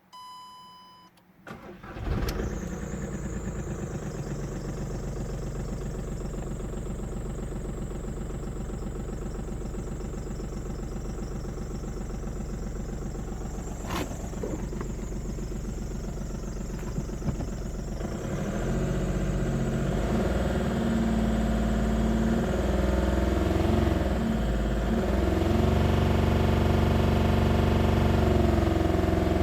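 A short beep, then the 2007 VW Polo's 1.4 three-cylinder turbodiesel cranks briefly and starts, settling into an idle. About two-thirds of the way through it grows louder and its pitch shifts up and down, as if lightly revved. This is the engine whose noise the owner reports as a problem.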